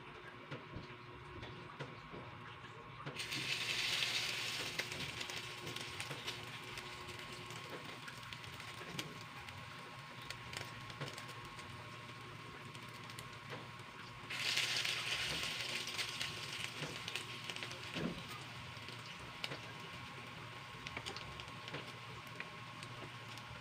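Malunggay patty batter frying in hot oil in a nonstick pan. A loud sizzle starts suddenly about three seconds in as the first patty goes into the oil and settles to a steady crackle, and a second sizzle starts just as suddenly about fourteen seconds in with the second patty.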